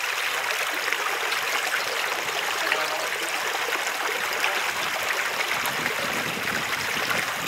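Small, shallow stream running over stones, a steady babbling of water.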